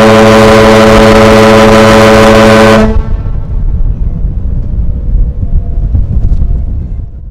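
Ferry's ship whistle sounding one long blast, a steady loud horn note that cuts off about three seconds in: the prolonged blast a power-driven vessel sounds as a fog signal when underway in fog. After it, wind rumbles on the microphone.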